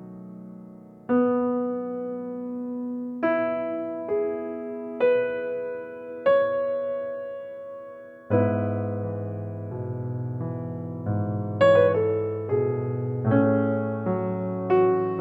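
Slow, calm piano music: single sustained notes struck about a second apart. About halfway through, a low bass and fuller chords come in and the notes come quicker.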